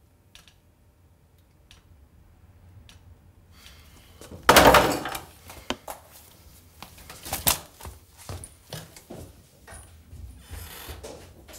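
Knocks and thuds of glasses and objects handled on a bar table: one loud thump about four and a half seconds in, then a run of lighter knocks and clicks.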